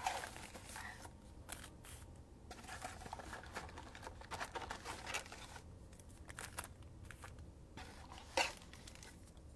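Cardboard trading-card mega box being opened and emptied by hand: faint scattered rustling, scraping and clicking of its flaps and the packs inside, with one louder rustle about eight seconds in.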